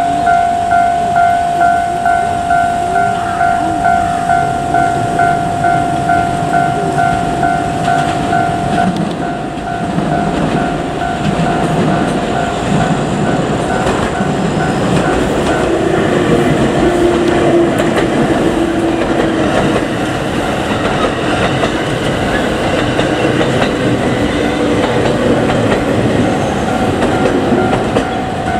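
Level-crossing warning bell ringing, about two strokes a second. From about ten seconds in, a JR Kyushu 787 series electric train passes, its wheels clacking over the rail joints, and its running noise drowns the bell.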